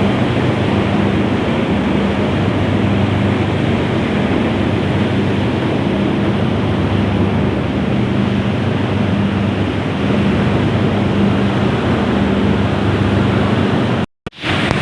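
Palm oil mill machinery running: a loud, steady mechanical noise over a low hum. It cuts out for an instant near the end.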